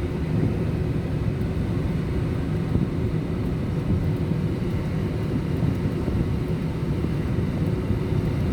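Vehicle moving along a road, a steady low rumble of engine and road noise.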